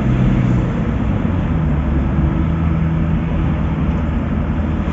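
A motor vehicle's engine running steadily with road noise, heard from inside the moving vehicle; the engine hum shifts slightly in pitch about half a second in.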